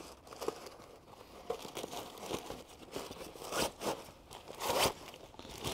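Rustling and scraping as a plastic Tesla aero wheel cover is slid into a storage bag, with louder scuffs about three and a half seconds in and again near the end.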